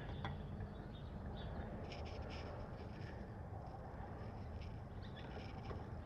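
Faint outdoor background: a steady low rumble with scattered short, high chirps and clicks.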